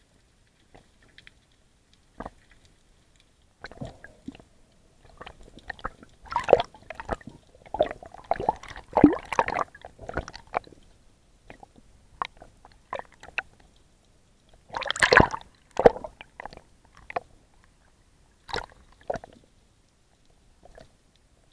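Underwater handling noise: irregular scrapes, rustles and knocks as a mesh catch bag and a plastic bag are handled close to the camera housing. The sounds come in clusters, busiest in the middle and again about three-quarters of the way through.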